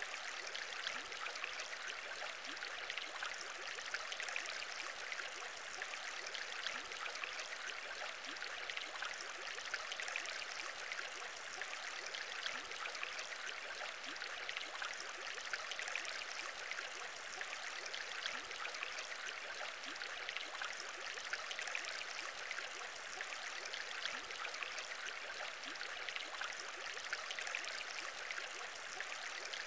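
Aquarium water bubbling steadily: a dense, unbroken stream of small bubbles popping at the surface.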